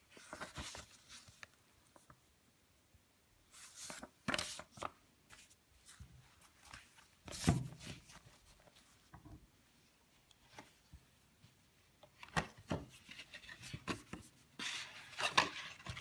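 Paper booklets and sheets rustling and sliding as they are handled with cotton-gloved hands, in short irregular bursts. There is a soft thump about seven and a half seconds in, and denser rustling near the end.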